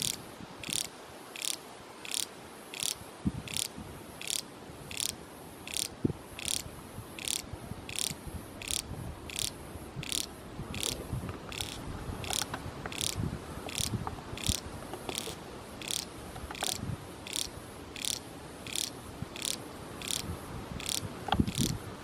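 Auscala flamea cicada calling: an even series of short, high-pitched buzzing pulses, about three every two seconds.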